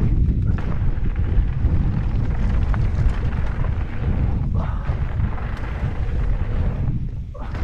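Wind buffeting the microphone of a camera riding on a mountain bike at speed down a dirt trail: a steady deep rumble, with the tyres on loose gravel and a few clicks of the bike rattling.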